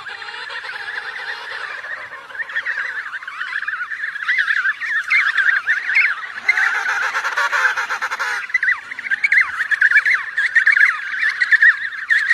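Many penguins calling at once, a dense colony chorus of overlapping squawks. About halfway through, a rush of noise sounds under the calls for a couple of seconds.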